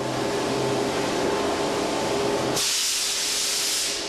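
Compressed air hissing from an air-jet nozzle driven under a moulded fibreglass part to release it from its mould, over a steady low hum. About two and a half seconds in, the hiss turns higher and sharper for over a second.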